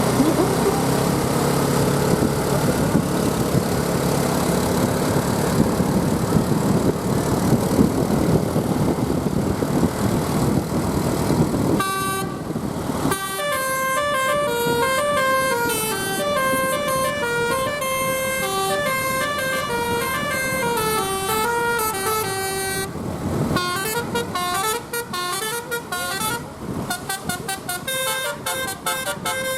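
Engine and street noise for about twelve seconds, then a Basuri telolet bus horn, a set of electric air horns, plays a stepping melody of several notes at once. After a short break about eleven seconds later it starts a faster run of rapid notes.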